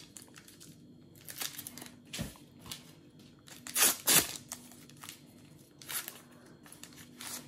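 A Topps Match Attax limited edition card packet being torn open by hand: the wrapper crinkles, with several short ripping tears, the loudest about four seconds in.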